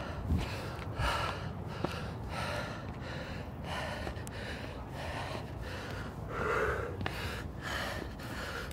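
A man panting hard after climbing fast, quick heavy breaths about twice a second. A few low thumps in the first two seconds.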